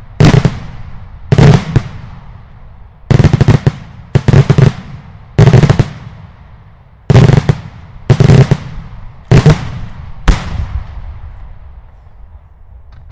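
Daylight fireworks display: a string of very loud aerial shell blasts, about nine over ten seconds, some coming as quick double or triple cracks, each followed by a rolling echo. The last blast fades out near the end.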